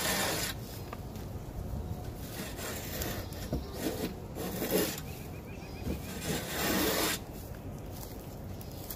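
A short wooden-handled hand hoe scraping and raking soiled litter and chicken manure across a wooden coop floor in repeated strokes, the longest and loudest right at the start and again about seven seconds in.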